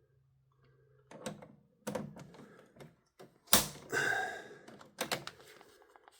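Irregular clicks and knocks of a torque screwdriver being worked on breaker terminal screws in an electrical panel, the loudest a sharp knock about three and a half seconds in with a brief metallic ring after it.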